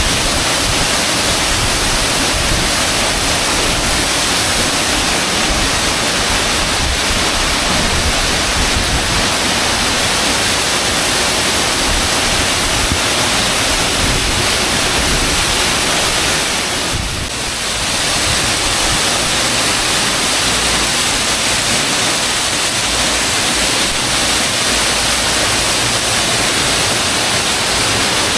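Waterfall inside a cave, swollen with heavy rain, pouring into a rock pool: a loud, steady rush of falling and splashing water that dips briefly once about two-thirds of the way through.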